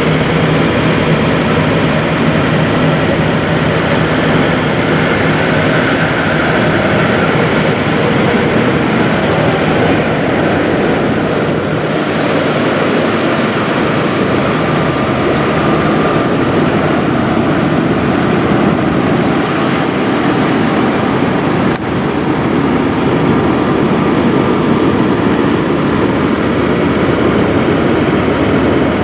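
Steady rumble of semi-truck diesel engines idling, with a single sharp click about three-quarters of the way through.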